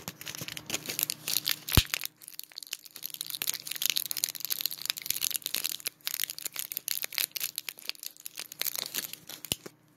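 Gum packaging being crinkled and crushed by hand: dense, continuous crackling of foil and plastic wrappers, with a sharp snap just before two seconds in and short pauses around two and six seconds in. It stops just before the end.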